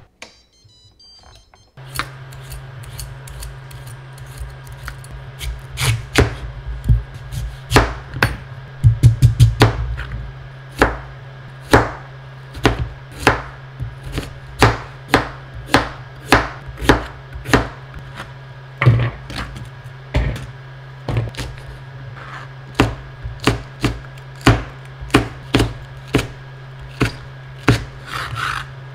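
Ceramic-coated kitchen knife chopping radish and green onion on a plastic cutting board: single cuts about once a second, with a quick run of chops about nine seconds in. A steady low hum runs underneath.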